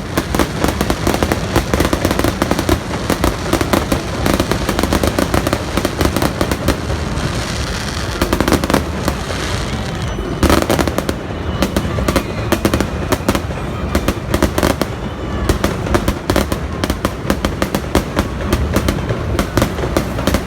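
Aerial fireworks bursting and crackling in rapid, dense succession, with a louder cluster of bangs about halfway through.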